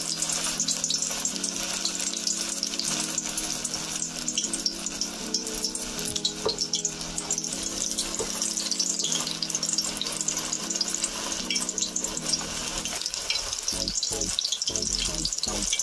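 Spinach pakoras in besan batter deep-frying in hot oil in a kadhai: a steady sizzle with continuous crackling.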